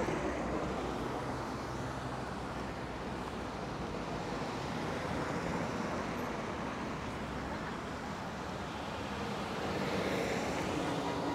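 Steady road traffic noise from vehicles running along a busy street, growing a little louder near the end.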